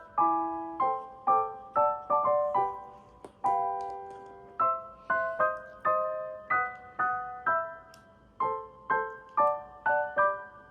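Background music: a gentle piano melody of single plucked-sounding notes, about two a second, each fading quickly.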